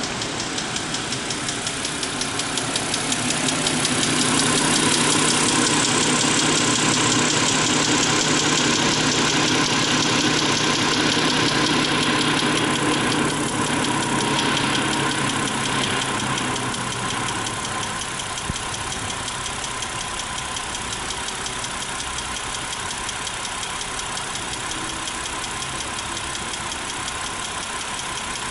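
BMW E60 engine idling with a fast, even ticking from its hydraulic valve adjusters (tappets), still present with the engine fully warm and on freshly changed oil: the sign of failing hydraulic lifters that the E60 is known for. The electric cooling fan runs with it, louder through the first half, and fades out about 17 seconds in.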